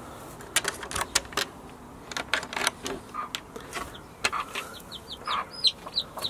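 Metal barrel bolt on a wooden chicken coop door sliding open, with a run of sharp clicks and knocks as the door is worked open. About five seconds in, a chick starts peeping in quick high, falling notes, with a hen clucking under it.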